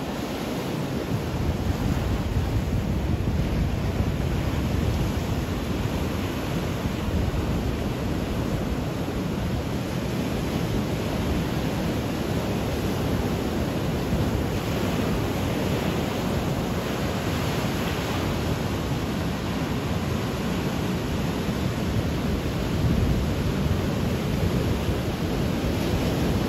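Ocean surf breaking and washing in over rocks and sand, a steady rushing wash, with wind buffeting the microphone.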